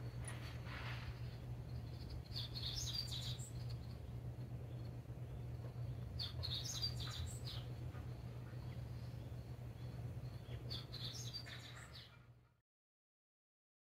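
Small birds chirping in short clusters every few seconds over a steady low hum, all fading out near the end.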